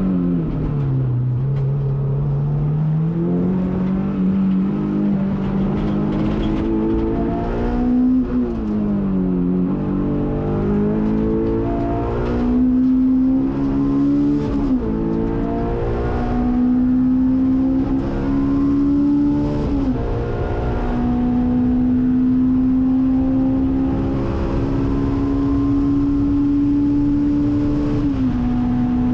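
Honda S2000's naturally aspirated 2.0-litre four-cylinder engine, heard from inside the cabin at racing pace. Its pitch falls as the car slows at the start, then climbs hard under full throttle, dropping sharply at each upshift; the last upshift comes near the end.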